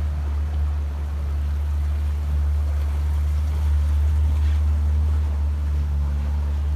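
Boat's engine running steadily, a low even drone, under a rushing noise of water and wind.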